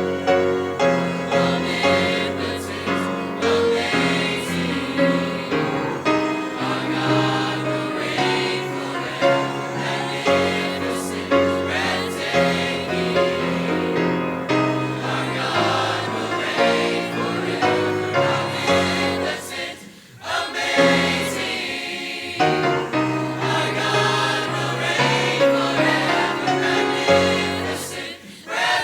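College gospel choir singing in harmony with piano accompaniment, with a brief pause between phrases about two-thirds of the way through.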